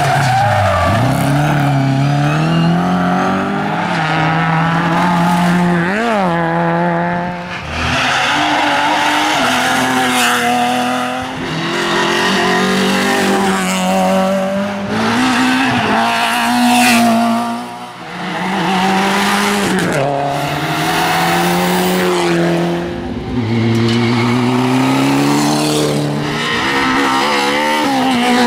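Rally cars passing one after another at speed, their engines revving hard, the pitch rising and dropping again and again through gear changes and lifts.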